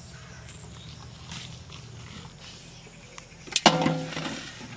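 A plastic bottle dropped into a metal basin: one sharp clank about three and a half seconds in, the basin ringing briefly before it fades.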